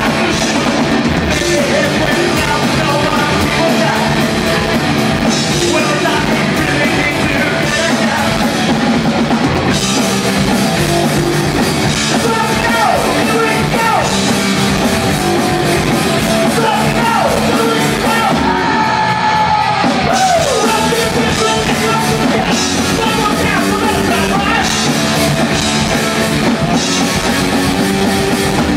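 Punk rock band playing live: electric guitars and a drum kit with a singer into a microphone, loud and steady throughout.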